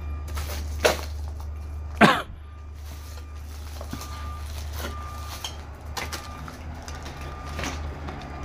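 Footsteps and handling knocks over a steady low hum, with one loud sharp crack about two seconds in.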